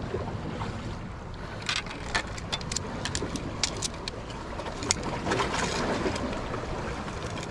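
Steady wind and water noise at the shore, with many small sharp clicks and ticks scattered irregularly after the first couple of seconds.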